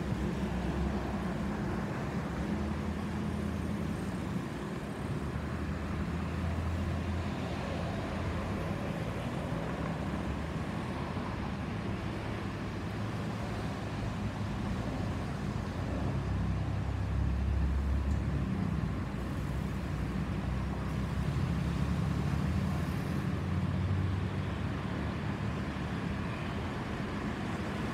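Low, steady rumble of a jet airliner passing high overhead: an Airbus A321neo with CFM LEAP-1A turbofans climbing out, swelling slightly in the second half.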